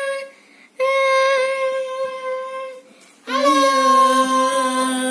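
A child singing two long held notes, one after the other with a short break between them.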